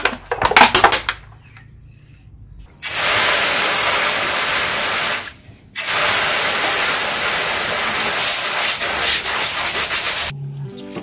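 Hard jet of water from an opened PVC-pipe tap spraying into a metal basin: a loud, steady rushing splash, cut off briefly about halfway through. A few clicks come at the very start.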